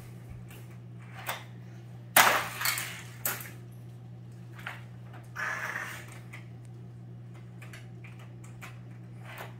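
Plastic toy car track pieces being handled, giving a few sudden clacks and rattles, the loudest about two seconds in and a short rattle a little past halfway. A steady low hum runs underneath.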